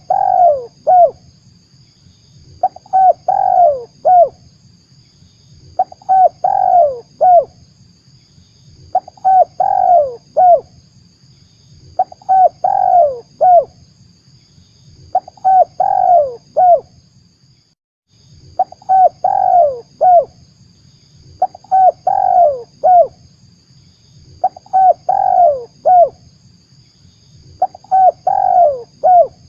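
Spotted dove (tekukur) cooing: a short phrase of several notes, repeated about every three seconds. It is a recorded lure call played to draw wild doves in, with a faint steady hiss beneath and one brief break in the loop partway through.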